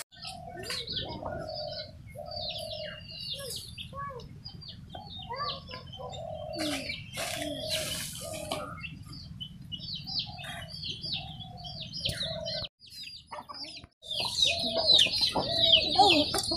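Small birds chirping with quick, high calls over repeated lower clucking calls from chickens. Near the end the chirping and clucking grow louder.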